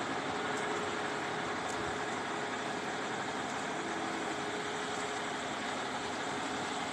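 Fire department aerial ladder truck's diesel engine idling: a steady running noise with a faint hum.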